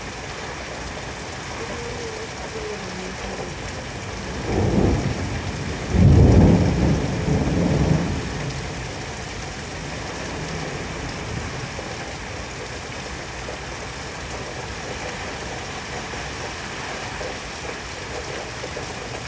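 Steady heavy rain with thunder rumbling in a thunderstorm: a low roll about four seconds in, swelling to its loudest between about six and eight seconds, then fading back into the rain.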